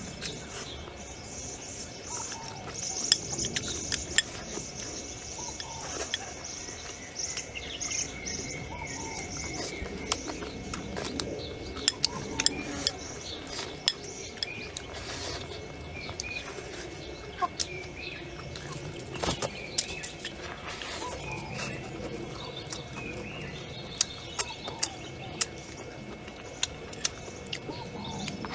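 Chopsticks and tableware clinking against bowls and plates in short, irregular clicks, with birds chirping in the background.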